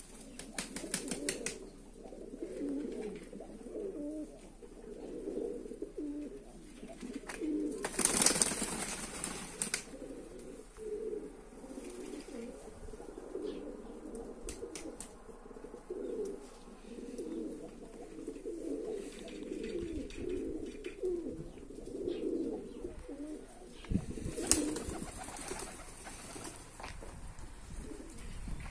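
A flock of Azerbaijani flying pigeons cooing continuously. Bursts of wing flapping come about a second in, around eight seconds in (the loudest), and again near the end.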